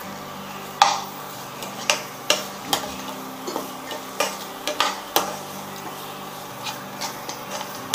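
Perforated steel spatula stirring chopped onions and green chillies in a non-stick frying pan, with irregular sharp clacks of the spatula against the pan, the loudest about a second in. A steady low hum runs underneath.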